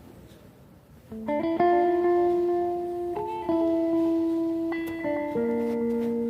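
Background music with plucked guitar notes, starting about a second in after a quiet stretch. The notes ring on, and a new chord or note comes in every second or two.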